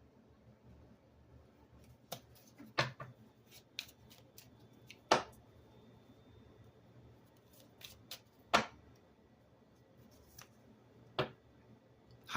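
Tarot cards being handled and laid down: scattered light taps and snaps of card stock, about ten in all, with sharper ones about three, five and eight and a half seconds in.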